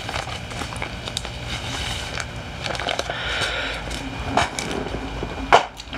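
Rustling, crackling handling noise as comic books are shuffled and set aside, with many small clicks and scrapes and a louder knock near the end.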